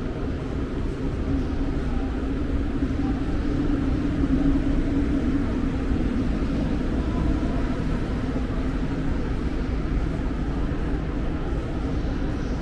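A steady low rumble that swells slightly about four seconds in and then eases off.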